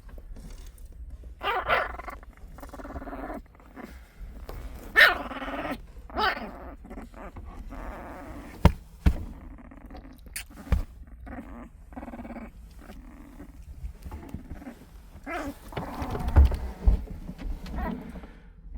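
Young puppies whimpering and squealing in several short pitched bouts, with a few sharp knocks around the middle.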